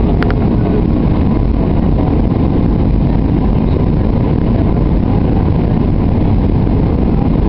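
Steady, deep cabin noise of a jet airliner in flight: the rush of engines and airflow heard from a window seat. A brief click comes just after the start.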